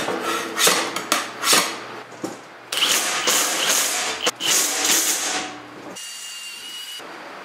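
A hand file rasping along the cut edge of a steel sheet in about four strokes, then a cordless drill boring through sheet metal. Near the end the drill spins with a steady whine.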